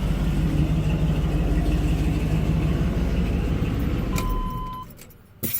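Replacement engine, out of an old Suburban, idling smoothly with no knocking, then switched off about four seconds in with a click and a short beep as it dies away. A sharp knock near the end.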